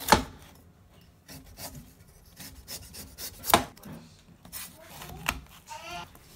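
A cleaver shaves the rind off a white wax gourd, the blade scraping through the skin. Between the scrapes come a few sharp knocks of the blade on the cutting board, the loudest about three and a half seconds in.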